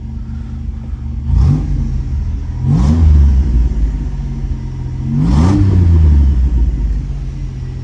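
Pontiac Fiero's V6 engine idling, with the throttle blipped three times: each rev rises and falls back to idle, and the third is the longest and loudest.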